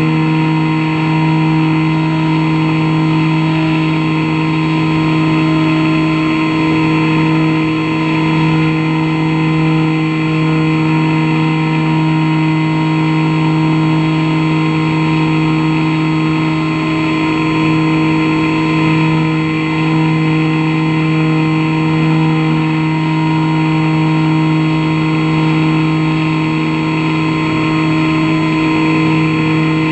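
An FPV model airplane's motor and propeller running at a steady cruise throttle, picked up by the onboard camera. It makes an unchanging hum with several fixed pitches, over a rush of airflow.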